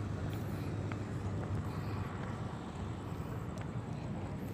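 Steady low rumble of city traffic with a few faint ticks.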